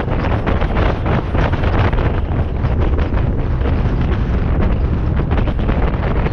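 Steady wind buffeting the microphone over the rumble of a car driving at road speed.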